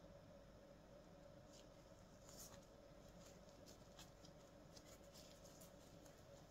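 Faint, scattered soft crackles and rustles of a soft-crumbed bread roll being torn and squeezed by gloved hands, over a steady faint hum.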